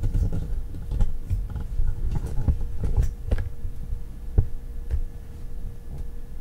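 Handling noise while working inside a desktop computer case: low rumbling thumps with scattered light clicks and taps, irregular, about two or three a second at most.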